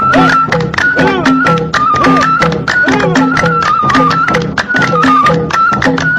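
Background music: a stepping melody over a steady, quick percussion beat.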